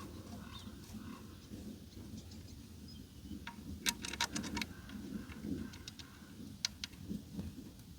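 Small clicks and taps of hand tools and parts being handled on an engine under reassembly, with a quick run of sharp clicks about four seconds in and two more near seven seconds.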